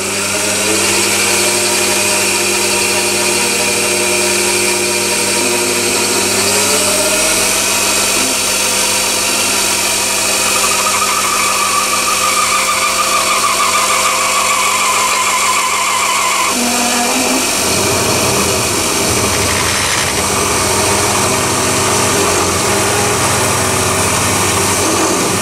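Chinese mini lathe running in its low headstock gear through a reduction gear set, with a steady motor and gear whine while an HSS twist drill bores into the spinning steel billet. The whine changes pitch a couple of times, most clearly about two-thirds of the way in.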